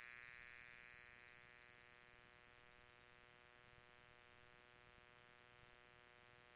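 Faint steady electrical buzz with static hiss on a police radio scanner recording between transmissions. It fades down over the first few seconds, then holds steady.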